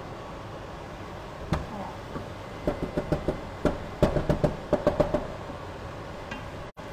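Serving spoon knocking and scraping against a pot while scooping out chicken: one sharp click, then two quick runs of clicks and taps near the middle.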